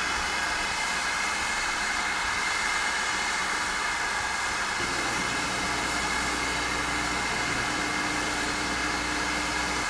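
Steady hiss of steam escaping from a GWR prairie tank steam locomotive standing in steam. A low steady rumble joins the hiss about five seconds in.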